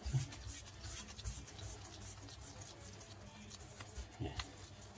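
Faint, soft handling sounds of hands rolling a ball of cheese-and-starch almojábana dough, with a few light taps.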